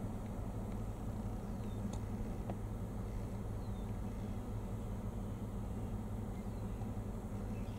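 Steady low hum, even in level throughout, with a few faint short high chirps of birds.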